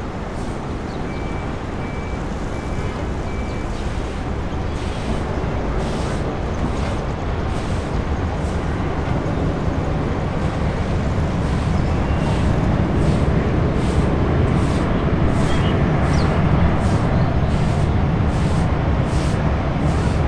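Jet airliner engines rumbling on approach to land, a steady low noise that grows slowly louder.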